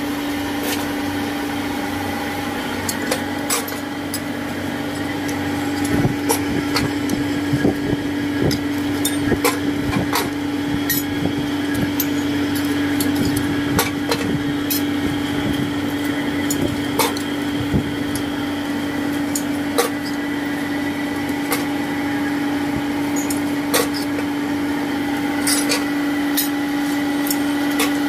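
Electric forge blower running with a steady hum, overlaid with scattered sharp clinks and knocks of hot iron being worked with tongs and hammer.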